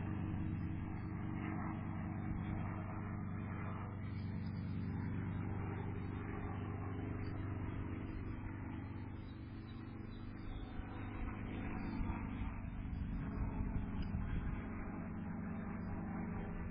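A steady motor hum, a low drone with a fixed pitch, with a few sharper crackles in the second half.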